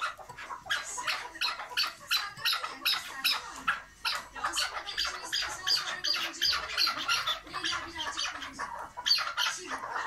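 Chukar partridge (keklik) calling: a rapid run of short, repeated chuk notes, several a second.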